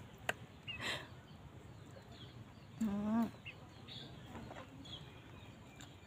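Chickens clucking now and then, with a short low call about halfway through and a light click near the start, against quiet outdoor background.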